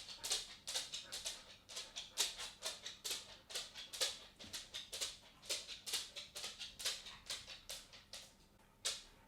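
A cat's footsteps as it walks: a quick, irregular run of short, light scuffs and ticks, about three or four a second.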